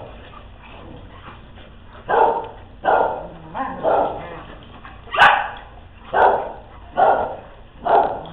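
A dog barking repeatedly during play, about once a second, starting about two seconds in.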